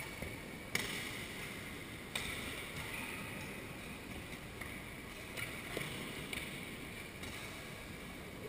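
Badminton rally: about five sharp racket strikes on a shuttlecock, roughly a second or so apart, the loudest about a second in, over a steady hiss of hall ambience.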